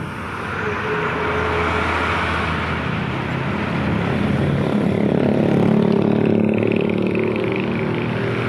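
Motor vehicle engine noise from road traffic, a steady rumble that swells to its loudest about six seconds in.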